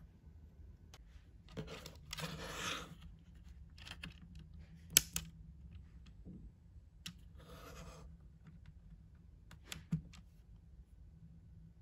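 Handling noises from a Logitech K380 Bluetooth keyboard being switched on and set up: two short rustling scrapes and a few small clicks. The sharpest click comes about five seconds in, as the power switch goes on, and another comes near the end.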